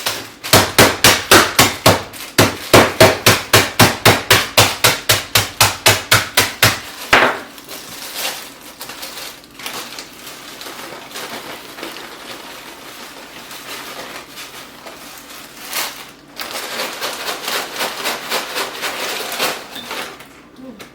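A block of instant ramen noodles being pounded and crushed in its pack: a rapid run of hard blows, about four or five a second, for some six seconds. After that come quieter crunching and crinkling, then another quick run of blows near the end.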